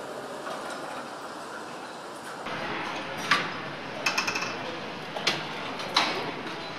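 Engine assembly line sound: a steady machinery hum, then from about two and a half seconds in several sharp clanks and a quick rattle of clicks as engine parts and fixtures are handled.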